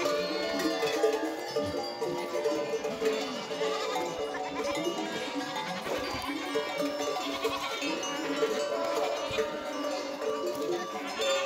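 Many goat bells (çan and kelek livestock bells) ringing together continuously as a large goat herd moves along, with goats bleating now and then.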